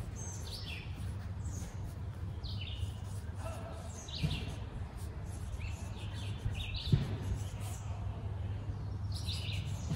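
Songbirds chirping outdoors in short, high, downward-stepping phrases every second or two, over a steady low rumble. Two sharp knocks stand out, one about four seconds in and another near seven seconds.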